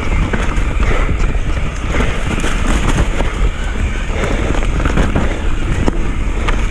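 Mountain bike descending a dirt downhill trail at speed: wind buffeting the mic, with tyre noise and a constant scatter of clicks and rattles from the bike over the rough ground.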